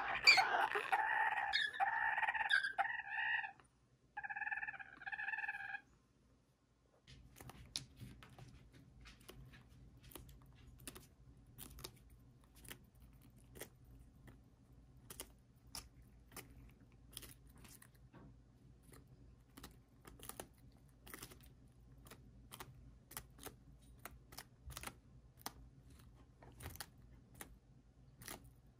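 Serama bantam rooster crowing, the call breaking off about three and a half seconds in and ending with a shorter second part near six seconds. After a moment of silence come many faint, sharp, irregular clicks of beaks pecking and tearing napa cabbage leaves.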